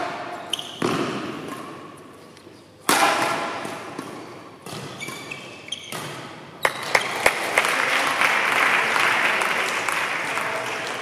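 Badminton rally: sharp racket hits on the shuttlecock ring out in the hall, a cluster of them about two-thirds in. Then a sustained burst of crowd noise, cheering and clapping, follows as the rally ends.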